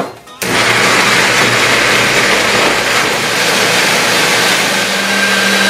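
Personal bullet-style blender's motor switching on about half a second in and running at a steady pitch, puréeing pickled vegetables and sauces into a smooth sauce.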